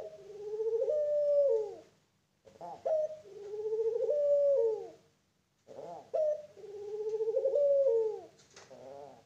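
A young Barbary dove (puter pelung) cooing: three long, drawn-out coos of about two seconds each, wavering in pitch, with short breaks between them and a few short notes near the end.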